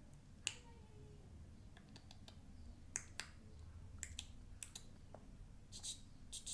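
Toys being handled: faint, irregular sharp clicks and taps, a few bunched together near the end.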